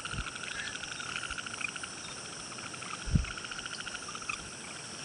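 A chorus of frogs calling in rapid pulsed trills, with two low thumps, the louder one about three seconds in.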